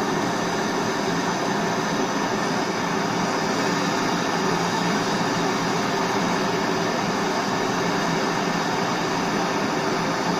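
Handheld gas blowtorch burning with a steady rushing sound as it heats the cylinder block of a seized Briggs & Stratton petrol engine, to free it after a soaking in penetrating spray.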